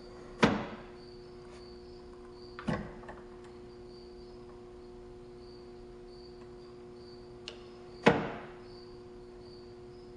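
Wooden Steampunk Impulse Engine kinetic sculpture running: sharp wooden clacks from its mechanism, a loud one about half a second in, a softer one a couple of seconds later, a light tick and then another loud clack near the end, each ringing briefly.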